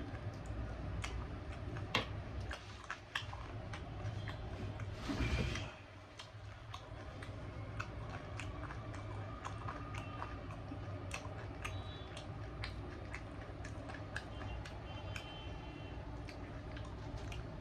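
A person chewing roti and chicken close to the microphone: many scattered wet clicks and smacks of the mouth, with a brief louder noise about five seconds in, over a steady low background hum.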